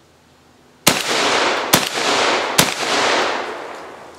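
Remington VersaMax Tactical 12-gauge semi-automatic shotgun fired three times in quick succession, a little under a second apart, with 2¾-inch magnum buckshot loads. The reports echo and die away over about a second and a half after the last shot.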